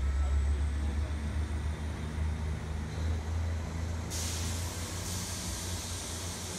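Diesel multiple unit pulling away, its underfloor diesel engine a low drone that slowly fades as the train moves off. About four seconds in, a steady hiss starts.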